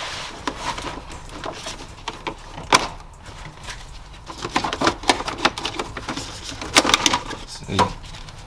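Brittle plastic dashboard pieces of a 1983 Oldsmobile Cutlass being pried and pulled loose by hand: a series of sharp clicks, snaps and cracks. The loudest crack comes about three seconds in, with a tight cluster of them around seven seconds in.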